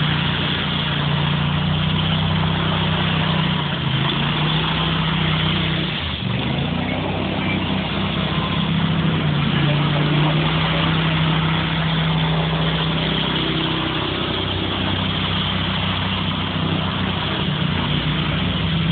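Riding power trowel engine running steadily, its pitch sagging briefly about four seconds in and again about six seconds in before it recovers, over a constant wash of noise.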